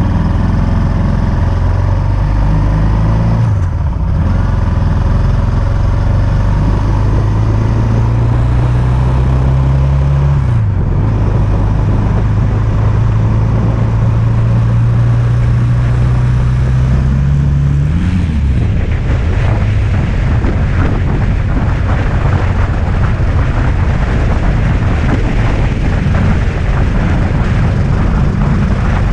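Yamaha XT660X single-cylinder motorcycle engine pulling through the gears: its pitch climbs steadily and drops at each upshift, about four, ten and eighteen seconds in. After the last shift, loud wind rush on the microphone drowns out the engine.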